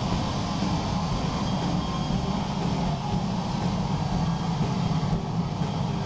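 Natural gas–oxygen burner firing steadily into a home-built cupola furnace to preheat it, a continuous deep roar.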